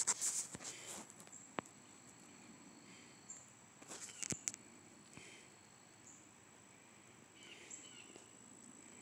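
Faint clicks and taps of fingers working a phone's touchscreen, in two short clusters near the start and about four seconds in, over a steady high-pitched whine.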